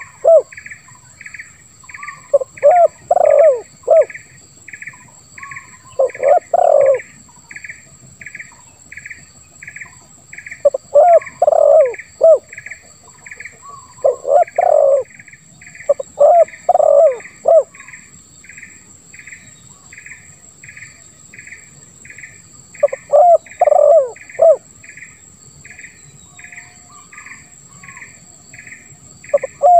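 Spotted dove cooing in short phrases of three or four low notes, each phrase a few seconds apart. This is the deep, rough 'ngeruk' voice that keepers prize. Under it, an insect chirps evenly about once a second and a steady high insect whine runs on.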